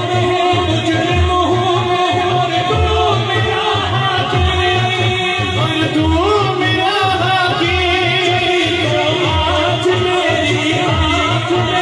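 A hamd, an Urdu devotional song, sung live by a man into a microphone. It is accompanied by sustained instrumental tones and a steady low beat, and the wavering sung line stands out more from about halfway.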